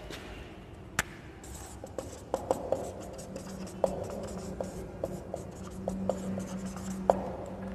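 Marker writing on a whiteboard: a run of short taps and strokes as dots and letters are put down, with a sharp click about a second in.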